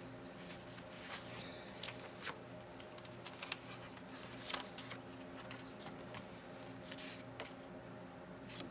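Paper rustling and handling, with scattered short rustles and light clicks as pages of a handmade paper journal are turned and touched, over a steady low hum.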